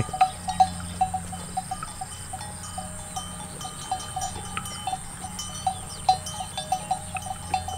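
Bell hung on a grazing water buffalo clinking irregularly, a few clear clinks a second, as the animal moves and feeds.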